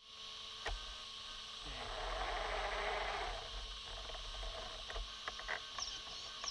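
Steady hiss and electrical hum, with a louder rush of noise from about two to three and a half seconds in and a few faint clicks.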